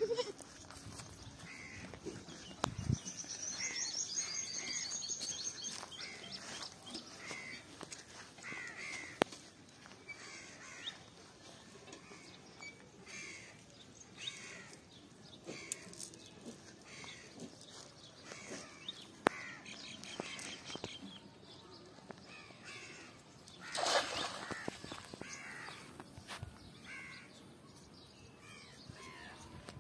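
Birds calling over and over, with a rapid high trill a few seconds in. About 24 seconds in comes a short splash as a cast net lands on the pond.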